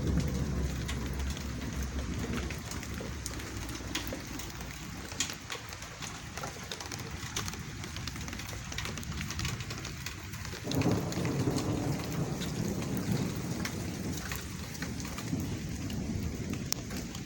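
Steady rain falling in a thunderstorm, with drops ticking sharply on a nearby surface. Low thunder rumbles at the start and again, starting suddenly, about eleven seconds in.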